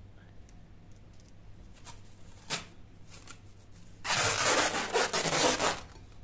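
Plastic cling film being pulled off its roll and stretched over a glass bowl: a loud rustle lasting about two seconds, starting about four seconds in, after a few faint clicks.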